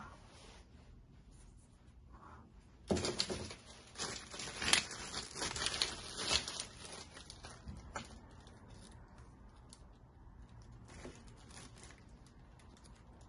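Plastic packaging bag crinkling and rustling as it is handled and pulled open, loudest for about three seconds starting three seconds in, then fainter, scattered crinkles.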